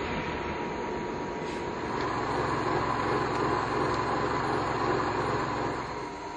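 Universal milling machine running with a steady whine, its noise growing louder about two seconds in and easing off near the end, as in a cut under load.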